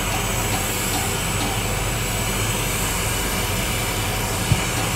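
Steady test noise playing through NEXO STM front-of-house loudspeakers (M28 line-array modules with S118 subwoofers) while the system is measured and EQ'd. A single short knock sounds about four and a half seconds in.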